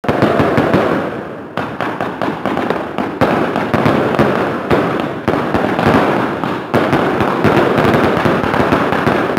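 Fireworks going off in a continuous crackle with many sharp pops. It dips briefly a few times and builds again.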